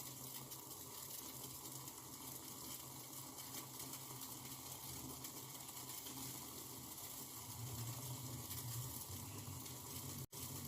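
A pot of kadha, a water-based herbal decoction, simmering on a gas stove: a faint, steady hiss with a fine crackle of small bubbles. The sound cuts out for an instant near the end.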